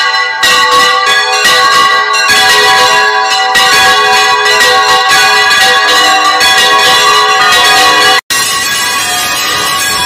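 Large church bells ringing at full swing in the tower, a dense clangour of rapid, overlapping strikes over long ringing tones. A little past 8 s the sound cuts out for an instant and comes back quieter and steadier.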